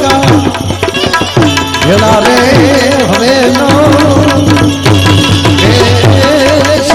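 Instrumental interlude of Gujarati devotional folk music: a wavering, held melody line played over quick hand-drum strokes, between sung verses.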